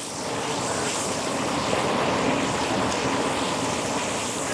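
Steady rushing of a river's flowing water, an even noise with no separate events.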